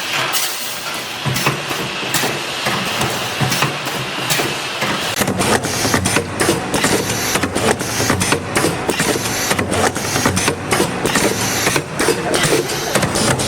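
Brick belt mesh welding machine running: a steady mechanical hum with many sharp, repeated clacks, getting busier about five seconds in.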